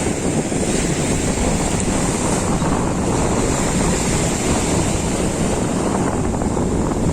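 Sea surf washing onto the shore: a steady rushing noise with no distinct breaks.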